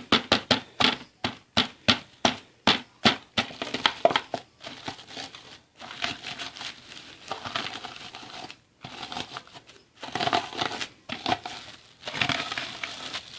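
MRE crackers being crushed together with seasonings to make breading for chicken: quick crunching strokes about four a second for the first four seconds, then a steadier crunching and crinkling of the crumbs.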